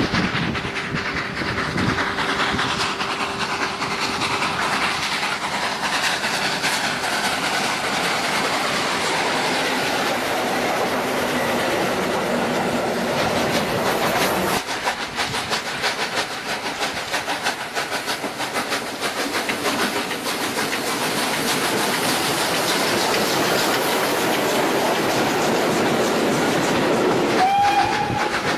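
A train running along the rails with a steady clickety-clack of wheels over the joints. A steam whistle starts to sound near the end.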